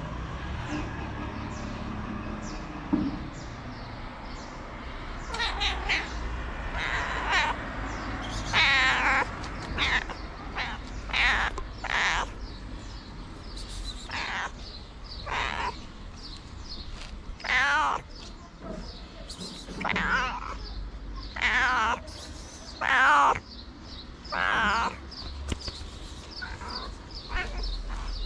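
A white stray cat meowing over and over, a dozen or more calls starting about five seconds in, some drawn out with a wavering pitch: begging for food.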